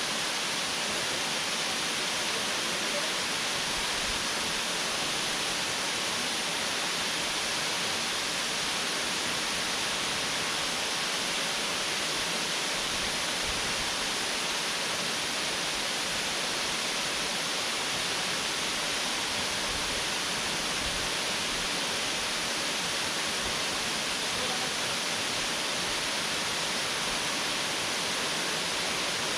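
Waterfall pouring: a steady, even rush of falling water that never lets up.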